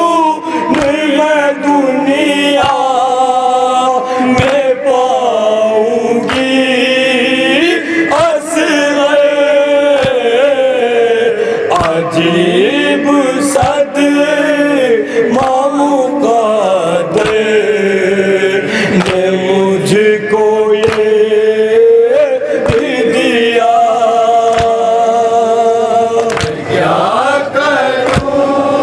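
Men chanting an Urdu noha, a lead voice with others joining in, over sharp slaps that recur about every two seconds: the rhythmic chest-beating (matam) that keeps time with the noha.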